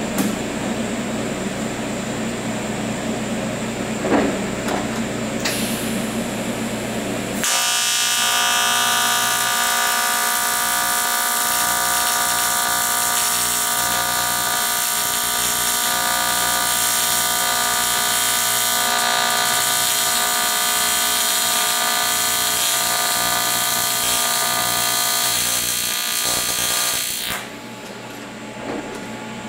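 AC TIG welding arc on aluminum: a steady, harsh buzz that strikes about seven seconds in, holds for about twenty seconds while a fillet bead is laid, then cuts off sharply. Before the arc there is a steady low hum with a few light clicks.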